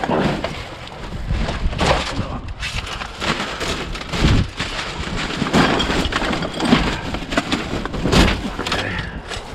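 Gusty wind buffeting the microphone with a constant low rumble, over intermittent rustling and clattering as junk and a string of Christmas lights are pulled out of a dumpster.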